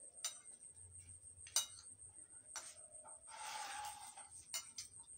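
Eating sounds: spoons clicking against plates and crisp crackers being crunched, a few sharp clicks with the loudest about a second and a half in and a short crackly rustle around three and a half seconds. A faint steady high-pitched tone runs underneath.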